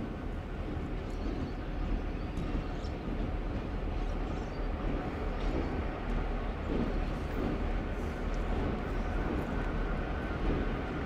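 Two T class diesel-electric locomotives running slowly in multiple: a steady low engine rumble that grows gradually louder as they approach.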